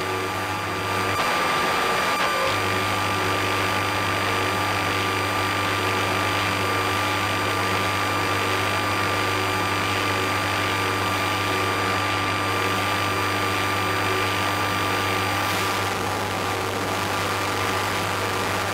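Synthesizer rig of a Mutable Instruments Clouds module and an Arturia MicroBrute putting out a sustained electronic drone and noise texture: a steady low hum under a thin high whistle-like tone and hiss. The low hum drops out for a moment about a second in, then holds.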